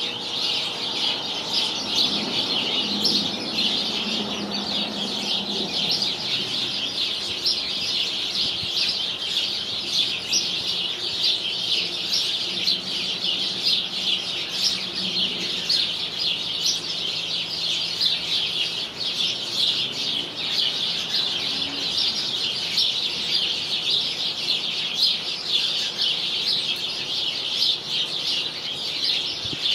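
A flock of house sparrows chirping constantly, many birds calling over one another in a dense, unbroken chatter.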